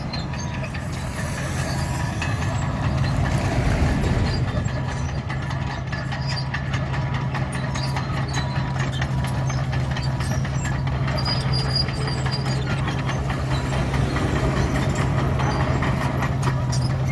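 Komatsu D61 crawler bulldozer's diesel engine running steadily, with frequent sharp clicks and clattering from the steel tracks and blade breaking up the chip-seal (DBST) road surface.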